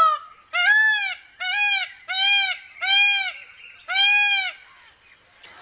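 An animal calling: about six short calls in a row, each rising and then falling in pitch, less than a second apart, followed by a brief click near the end.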